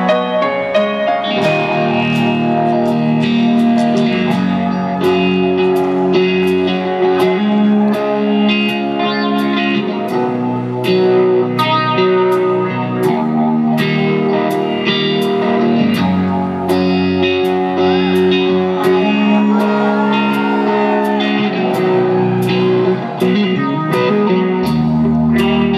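Live rock band playing: electric guitar chords over a steady drum beat about twice a second.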